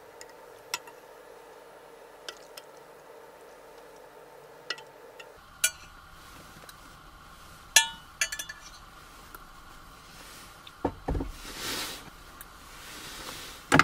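Scattered light clinks and knocks of dishes and utensils being handled. The sharpest clink comes about eight seconds in, and a couple of longer rustling scrapes follow near the end.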